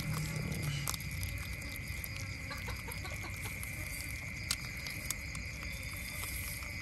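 Otters feeding, with a low call fading out about a second in and scattered small clicks of chewing, over a steady high-pitched drone.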